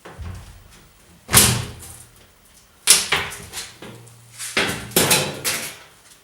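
Sheet-metal side panel of a Whirlpool top-loading washing machine being worked loose and taken off: sharp metallic bangs and rattles, a loud one about a second in, another about three seconds in, and a cluster of them near the end.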